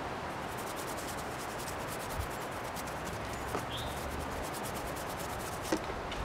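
A hand rubbing and smearing paint across a large canvas, with quick, repeated scratchy strokes.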